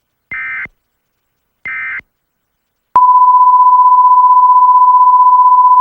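Two short electronic data bursts about a second and a half apart: the EAS end-of-message tones that close the alert. About three seconds in, a loud steady single-pitch tone starts and holds.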